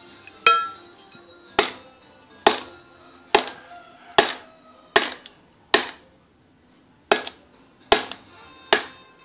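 A run of about ten sharp knocks, roughly one a second, each ringing briefly, with a longer pause about two-thirds of the way through. The knocks are a hard object being struck repeatedly, typical of a phone being whacked to 'fix' it, with faint music underneath.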